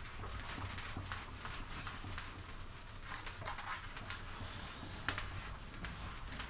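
Handheld eraser wiping a whiteboard: soft, irregular rubbing strokes over a low steady hum.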